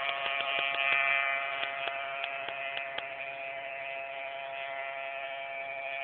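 Simson two-stroke moped engine buzzing steadily in the distance, slowly getting a little quieter.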